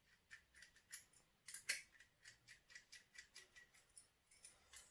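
A key being pushed and jiggled in a motorcycle lock it does not fit: a string of small, irregular metal clicks and scrapes, the loudest a little over one and a half seconds in.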